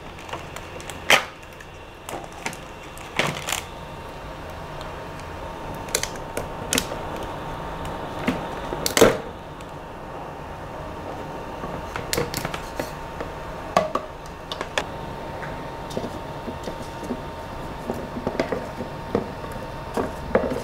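A handheld scraper prying cured resin prints off a resin 3D printer's build plate over a plastic tub: irregular scraping, clicks and knocks, a few seconds apart.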